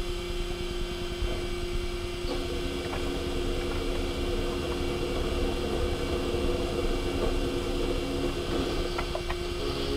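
Okuma MULTUS U4000 multitasking machine milling a clevis part: the spindle and cutter run with a steady tone over a constant machine rumble. A second, slightly lower tone joins a little over two seconds in, with a few faint ticks of the cut.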